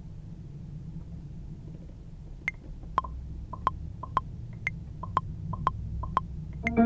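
Low hum, then about two and a half seconds in a sparse run of short, sharp electronic clicks at two pitches, roughly two a second with some doubled. They sound like a beat's percussion or click track playing alone, until the full beat comes back in at the very end.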